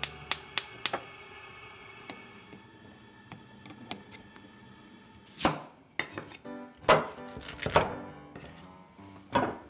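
Kitchen knife slicing through a peeled taro onto a bamboo cutting board, several cuts coming in clusters through the second half. A quick run of four sharp clicks comes at the very start, with soft background music.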